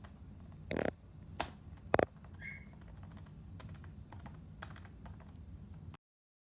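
Keys of a membrane keyboard being pressed in an irregular run of clicks and taps, the loudest about two seconds in. The sound cuts off about six seconds in.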